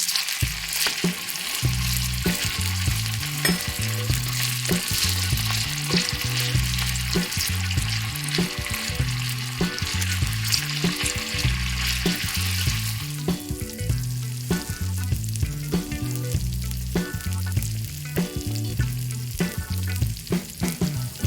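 Food sizzling and frying in hot oil in a miniature pan, with stirring, over background music with a repeating bass line. The sizzle dies away about two-thirds of the way through, leaving the music and light clicks and taps.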